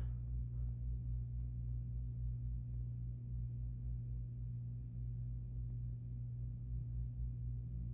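Feature Comforts FT30-3D table fan's blades spinning down after switch-off, under a steady low hum.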